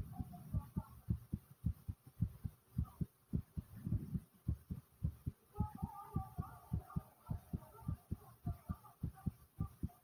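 A human heart beating fast and pounding hard after squats: a steady run of low lub-dub thumps, about three to four a second. A faint, wavering stomach gurgle joins about halfway through.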